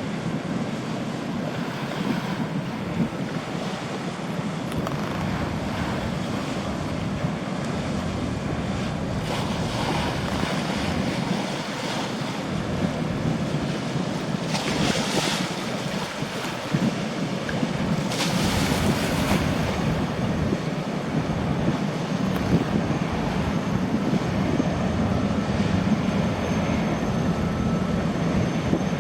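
Boeing Jetfoil gas-turbine hydrofoil ferry running on the water: a steady low drone mixed with rushing water and wind buffeting the microphone. There are two louder hissing gusts about halfway through, and a faint high turbine whine comes in about two-thirds of the way through.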